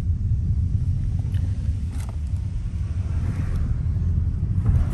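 Steady low rumble of road noise inside a moving car.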